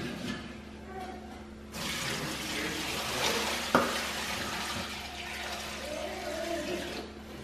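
Whey pouring from a large metal pot through a plastic colander into a stainless steel sink, draining the mozzarella curd. The pour starts about two seconds in and stops near the end, with a single knock partway through.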